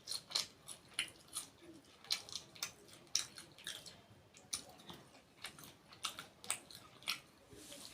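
Close-miked chewing and biting of food, an irregular run of short sharp mouth clicks several times a second.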